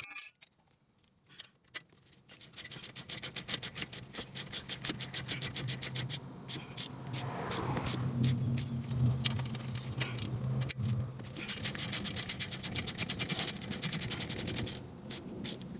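Hand ratchet clicking rapidly, about six clicks a second, in two runs while working the brake caliper bolts, with a low steady hum in the middle stretch.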